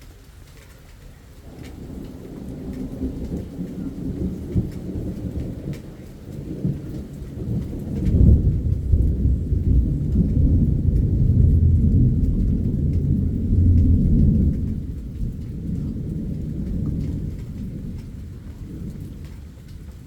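A long roll of thunder over steady rain. The rumble builds from about a second and a half in, swells sharply about eight seconds in, holds for several seconds, then slowly fades.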